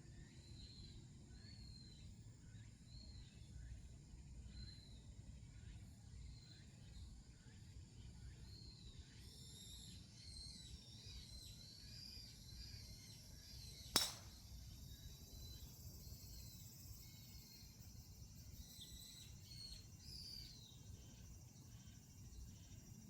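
A bird calling with short chirps repeated over and over, a little more than once a second, over a faint low rumble of wind. About fourteen seconds in there is a single sharp crack, the loudest sound.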